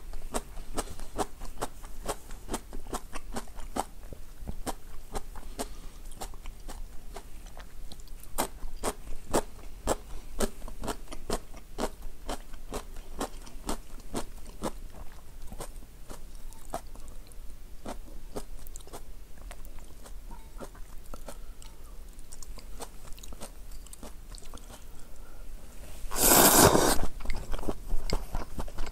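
Mouth sounds of eating: chewing with many small crisp crunches and wet clicks, as of pickled side dishes. Near the end comes a loud slurp of ramyeon noodles lasting about two seconds.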